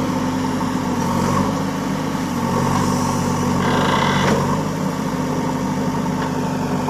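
Diesel engine of a JCB backhoe loader running steadily. Its pitch shifts slightly a little over two seconds in, and a brief higher whine comes about four seconds in.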